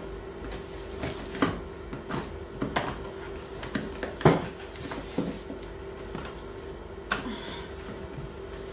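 Scissors snipping through a cardboard box and the cardboard being handled: irregular clicks, snaps and crackles, the loudest about four seconds in.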